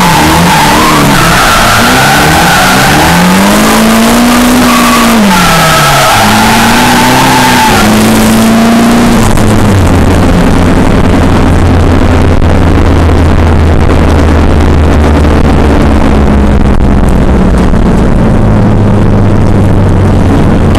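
Drift car's engine heard loud from inside the cabin, revving up and down in quick swings for about the first eight seconds. It then settles to a steady low drone at constant revs for the rest.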